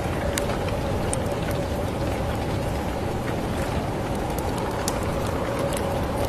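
Steady rain falling outside a window: an even, deep rushing hiss with scattered sharp ticks of individual drops striking nearby surfaces.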